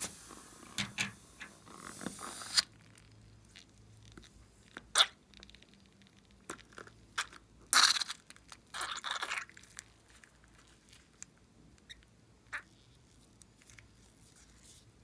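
Hands working slime and balloons, making wet crackling squishes and sharp clicks. There is a dense crackling stretch at the start, a sharp click about five seconds in, and another loud crackling stretch around eight to nine seconds in.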